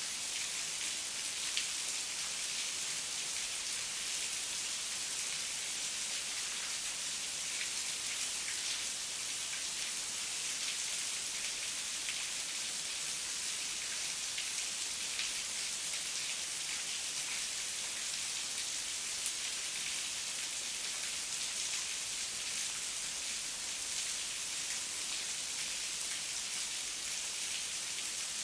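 Heavy rain falling steadily: an even hiss with many faint drop ticks scattered through it.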